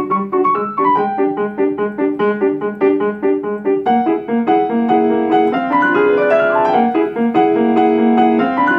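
Grand piano played solo: quick, evenly repeated notes and chords for about the first four seconds, then runs of notes that climb and fall.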